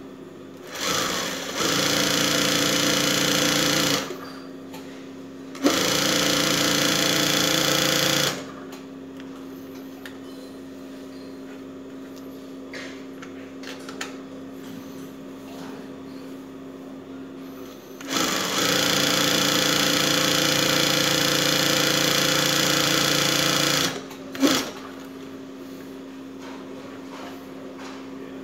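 Bernina 217N-08 industrial picot and pintuck sewing machine stitching in three runs of a few seconds each, the last and longest about six seconds, with a brief burst near the end. A steady hum continues between the runs.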